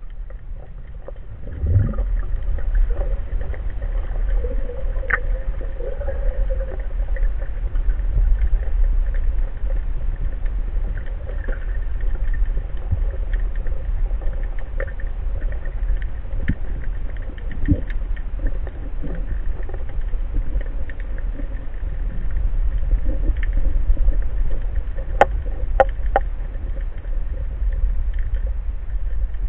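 Underwater ambience heard through a camera's waterproof housing as a freediver moves: a steady low rumble of water against the housing, with scattered small clicks and crackles. It gets louder about a second and a half in.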